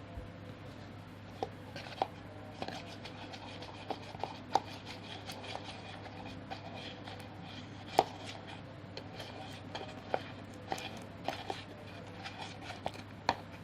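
Glue-and-soap slime being mixed, making irregular sticky clicks and taps, the loudest about eight seconds in.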